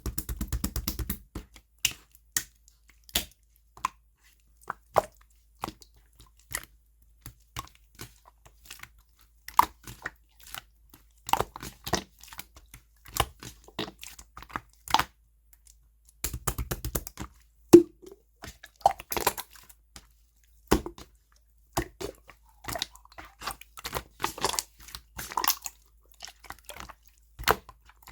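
Slime being squeezed and stretched by hand, making irregular sticky clicks and pops, with two bursts of rapid crackling, one at the start and one about halfway through.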